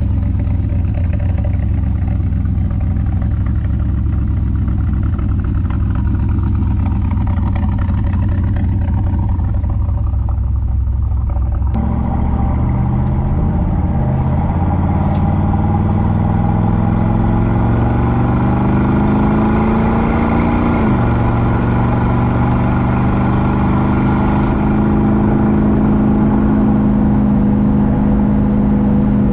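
Custom Mustang GT350's V8 engine with Holley Sniper fuel injection: first a steady low rumble, then, after a sudden change in sound, the engine pulling on the road with its pitch rising, dropping once sharply about two-thirds of the way through, as at an upshift, and then holding steady at a cruise.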